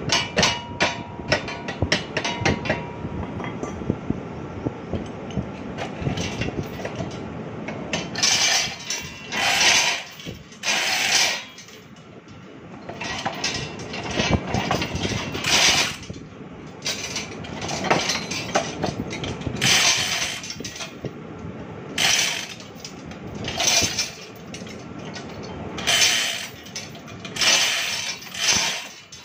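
Hand metalworking on steel at a bench: a quick run of clinking taps, then rasping strokes, each under a second, coming about every two seconds.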